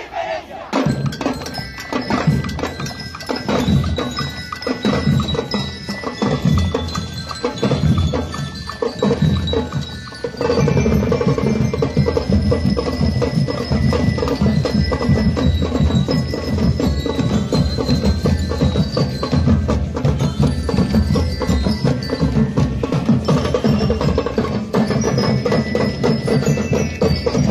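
Marching band drumline playing snare and bass drums in a fast steady beat, with a melody on ringing metal bells above it. About ten seconds in, the drumming gets fuller and louder.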